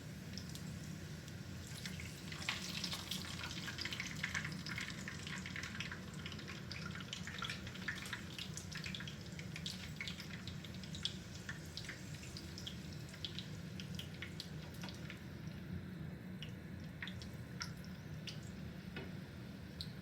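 Wonton wrappers frying in hot canola oil in a skillet: a crackle of many small pops, busiest in the first half and thinning out later, over a low steady hum.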